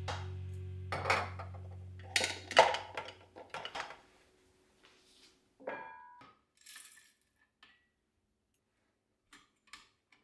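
Dishes and utensils clinking and clattering, several sharp knocks in the first few seconds and one clink that rings briefly about six seconds in, then a few faint taps; background music fades out during the first few seconds.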